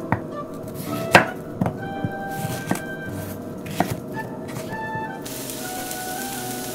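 Kitchen knife cutting zucchini on a wooden cutting board: about six sharp, irregular knocks of the blade on the board. Near the end this gives way to a steady hiss of onions sizzling in a frying pan.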